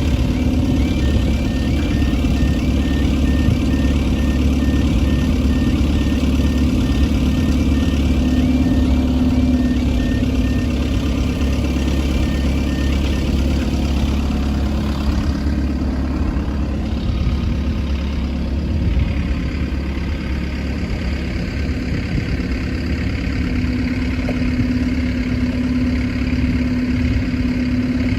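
Engines running steadily at a railway level crossing, a deep continuous rumble. For about the first ten seconds a high warning tone repeats at an even rate over it, then stops.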